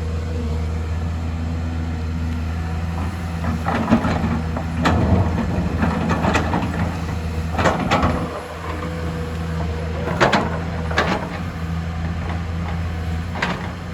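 Excavator's diesel engine running steadily with a low hum, its note dipping briefly about eight seconds in. A series of sharp knocks and clatters sounds over it, several between about four and eleven seconds in and one more near the end.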